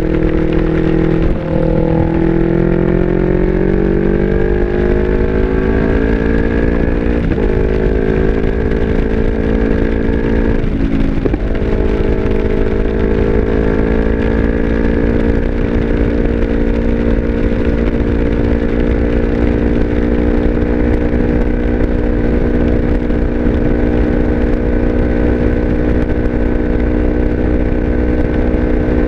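Yamaha R25's parallel-twin engine through an Akrapovic exhaust, pulling up through the revs with two quick upshifts about seven and eleven seconds in, then holding a steady cruise. Low wind rumble on the helmet mic.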